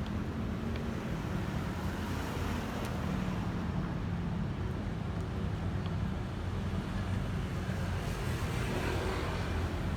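Steady road traffic noise: a continuous low rumble of vehicle engines going by.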